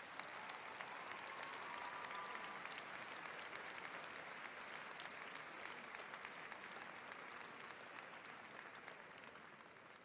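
Audience applause and clapping, starting suddenly, fullest about two seconds in, then slowly dying away.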